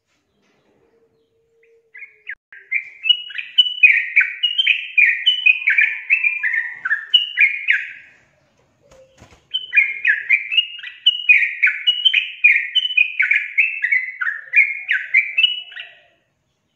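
Yellow-vented bulbul (trucukan) singing two bouts of its chattering song, each a quick run of short, downward-sliding notes lasting about six seconds, with a short pause about halfway through.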